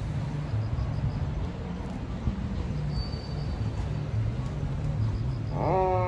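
City traffic at an intersection: a steady rumble of passing cars. Near the end a police car siren starts up, rising in pitch and then slowly falling in a wail.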